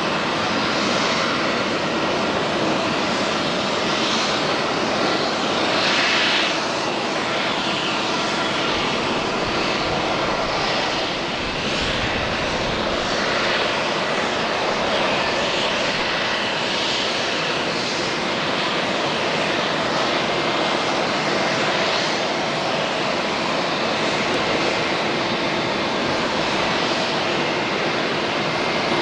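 Airbus A350-900 airliner's Rolls-Royce Trent XWB turbofan engines running: a steady, loud rushing noise with a few faint high tones.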